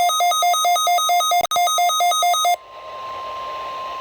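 Emergency alert tones from a receiver's speaker. First comes a rapid electronic beep alternating between two pitches, about four cycles a second, which cuts off abruptly about two and a half seconds in. Then a single steady alert tone sounds over radio static, the weather-radio warning alarm tone that comes before an emergency alert message.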